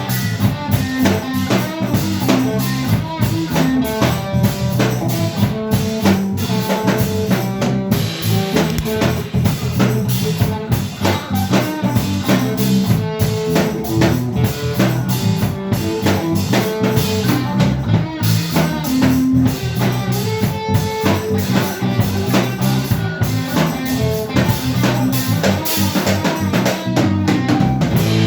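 Instrumental rock band music: a drum kit playing a steady beat with rimshots and bass drum under electric guitar and bass.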